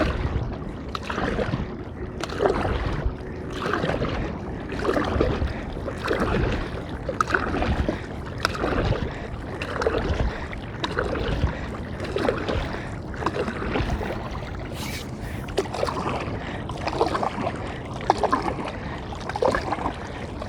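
Stand-up paddle strokes in lake water: the blade splashing and dripping in a steady rhythm of about one stroke every second and a bit.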